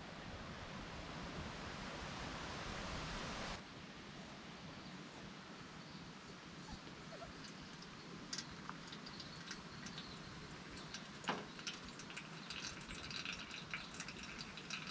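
Steady rustle of wind in forest leaves that stops about three and a half seconds in. Then hot water poured from a stainless gooseneck kettle into a pour-over coffee dripper, trickling and dripping, with a few knocks and clinks of metal on the table, the loudest knock a little past the middle.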